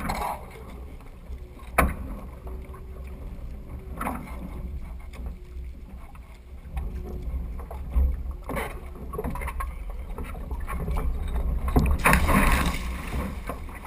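Water sloshing and splashing against the hull of a Weta trimaran under sail, with wind rumbling on the microphone and a few sharp knocks. The splashing grows louder about twelve seconds in.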